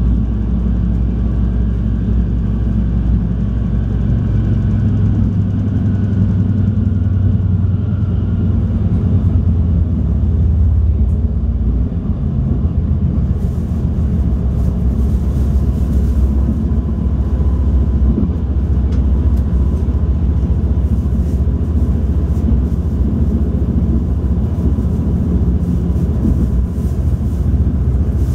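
Stadler GTW diesel light-rail car running at speed, heard from inside the passenger cabin: a steady low diesel drone and rumble of wheels on the rails, with faint clicks and hiss from about halfway through.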